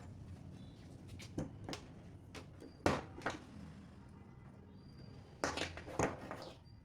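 Scattered sharp clicks and knocks, about half a dozen, the loudest about three seconds in, over a faint low hum.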